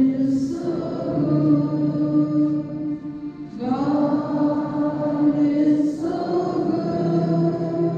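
School students singing a slow song together in long held notes, the pitch changing every two to three seconds.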